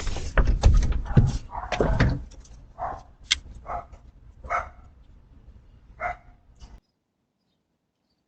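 Dog barking: a rapid, loud flurry of barks for about two seconds, then a few spaced single barks, stopping abruptly near the end.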